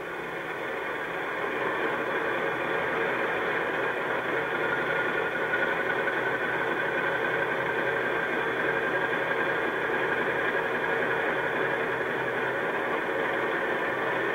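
Model Class 37 locomotive's DCC sound decoder playing an English Electric V12 diesel idling, heard through a small speaker in the model's fuel tanks. It builds over the first two seconds, then holds steady with a high whine over the engine note.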